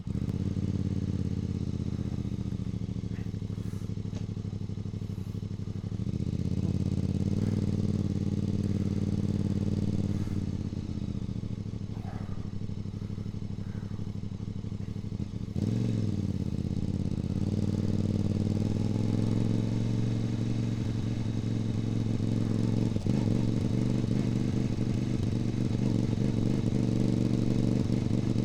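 Voge DS 800 Rally's parallel-twin engine running on the road through a Scorpion slip-on silencer with its baffles removed, a straight-through exhaust note picked up close to the silencer. The revs rise and fall gently at low speed, dipping and picking up again about halfway through, then hold steady.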